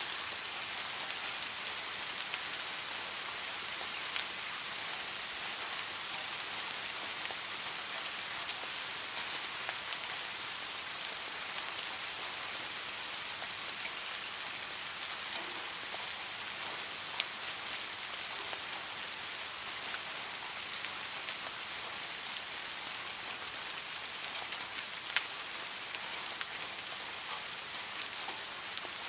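Steady rain falling, an even hiss, with a few sharper individual drop hits standing out, the loudest about 25 seconds in.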